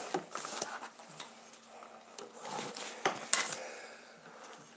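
Light scattered knocks and clicks of a Tupperware MicroPro Grill dish and its lid being handled, with a sharper click about three seconds in.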